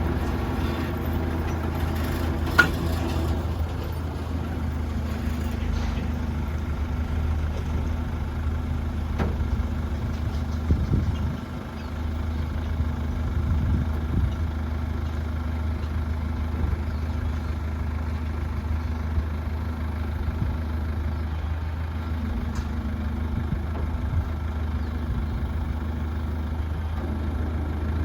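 A heavy engine running steadily at idle-like speed, with one sharp knock a couple of seconds in and a thud near the middle.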